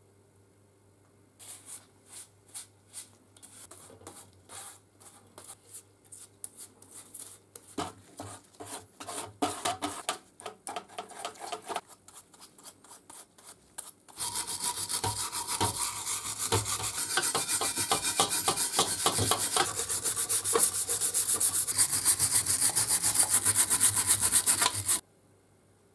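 A brush scrubbing wet steel parts in a metal pan, working a cold bluing liquid into them. Scattered strokes at first, then fast, continuous scrubbing from about halfway, cutting off suddenly near the end.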